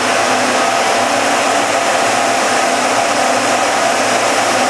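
Model tornado machine running: its high-velocity automotive radiator fan drives the updraft while computer fans push air down through the side tubes, making a steady rush of fan noise with a faint hum beneath.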